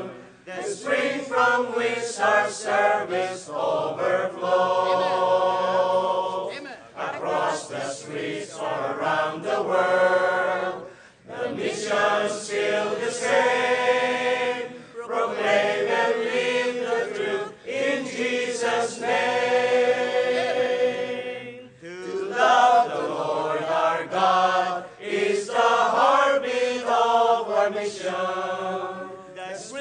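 Mixed choir of men and women singing a hymn in harmony, holding long chords with a few short breaks between phrases.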